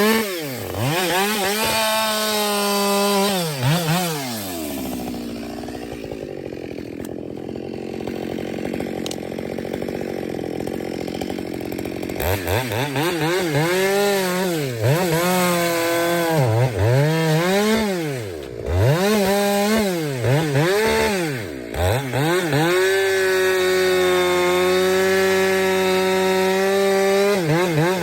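Ported Husqvarna 572XP two-stroke chainsaw cutting oak: it revs up and down for the first few seconds, drops to idle for several seconds, then blips the throttle repeatedly and holds a long steady full-throttle cut near the end. The chain is going dull from dirty wood, so the cutter judges it is time for a new chain.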